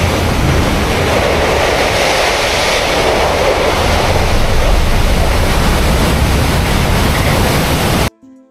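Loud, steady rushing of turbulent water pouring out under an open dam gate into a concrete spillway channel. It cuts off abruptly near the end, and faint music begins.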